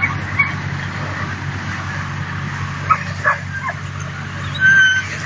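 Dutch Shepherd puppies tussling over a ball, giving a few short high yips and then a held whine near the end, over a steady low hum.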